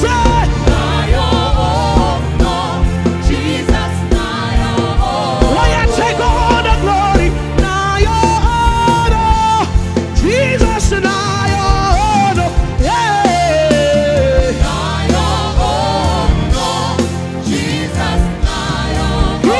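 Live gospel praise music: a band with a steady beat behind singing voices, a lead voice sliding and holding notes.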